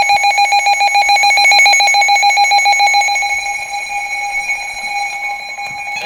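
Weather radio alert alarm: a rapidly pulsing high electronic tone announcing an incoming flash flood warning. It drops in level about three seconds in.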